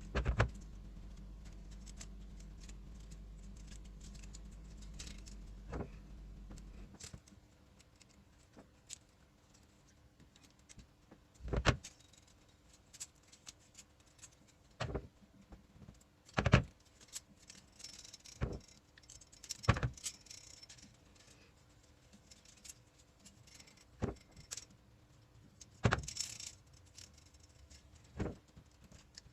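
Metal parts and hand tools clinking and knocking at irregular intervals, with a low steady hum under the first several seconds that cuts off about seven seconds in.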